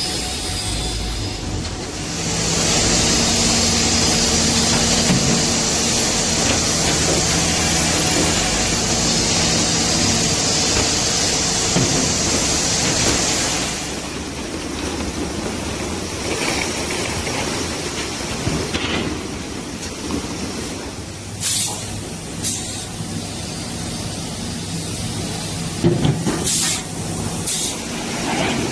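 Wood-based panel production-line machinery running with a steady drone and hum. A loud hiss, like escaping air or steam, comes in about two seconds in and cuts off about halfway through. A few short sharp hisses follow near the end.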